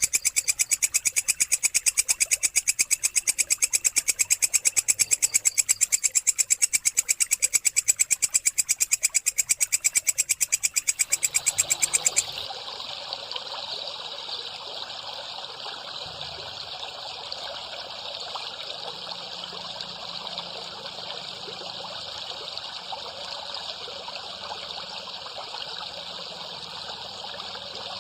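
Recorded songbird calls for cagebird song training: a fast, even string of sharp high chirps, many per second. About twelve seconds in, this cuts abruptly to a different recording of a dense, continuous high buzzing trill.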